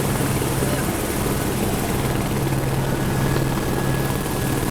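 Tour helicopter running steadily: a constant low hum over a dense rotor and engine noise.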